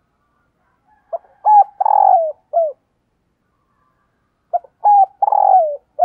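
Spotted dove cooing: two phrases of its song about three seconds apart, each a couple of short coos followed by a longer coo that falls in pitch at the end. It is the call of a caged decoy bird, used to lure wild doves in.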